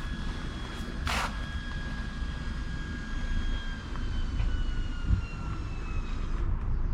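Aircraft passing overhead: a steady low rumble with a high engine whine that slowly drops in pitch and fades near the end. Two short hissing bursts come near the start.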